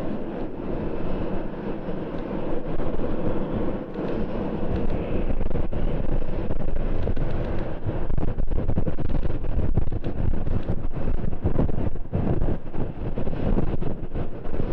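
Wind buffeting the microphone over the steady rumble of an Airbus A350-941's Rolls-Royce Trent XWB jet engines, growing louder about five seconds in.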